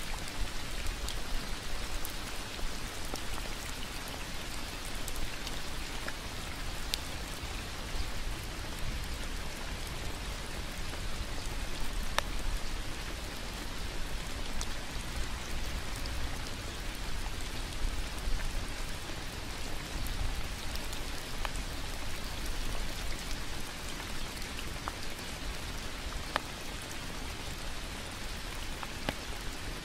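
Steady rain falling on foliage and a wet path, with now and then a single louder drop striking close by.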